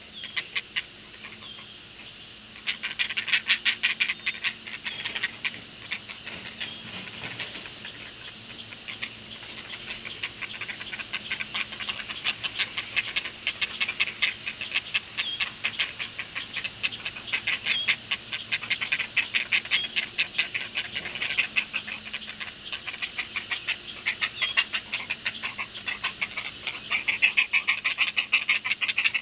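Great blue heron nestlings giving their fast clattering begging calls, a rapid run of short ticks many per second, as an adult feeds them at the nest. The chatter pauses briefly after the start, then runs on almost without a break, loudest near the start and near the end.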